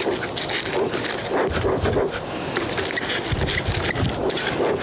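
Dry leaves and cardboard crinkling and crackling as they are stuffed and poked into the top of a lit bee smoker, with a few low whooshes of air.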